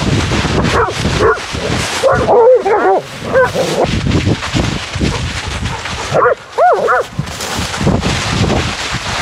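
A dog whining in short, rising-and-falling yips, a few about two seconds in and a few more about six seconds in, over the steady rustle of dogs running through dry fallen leaves.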